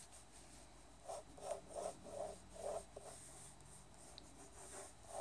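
Pencil drawing on paper over a clipboard: a run of short, faint scratching strokes starting about a second in, with a few lighter strokes near the end.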